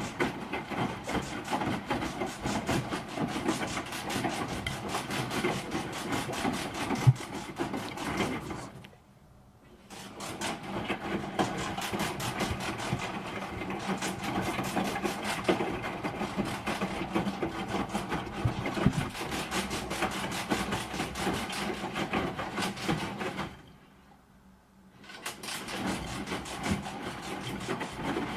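Broken washing machine running with a continuous clattering rattle and knocking, with one sharp knock a few seconds before the first stop. It stops twice, each time for about a second and a half, then starts again.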